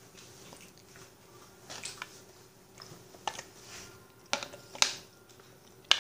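A glass jar being handled, with about half a dozen short sharp taps and clicks scattered over the few seconds as fingers dig into it. A faint steady hum runs underneath.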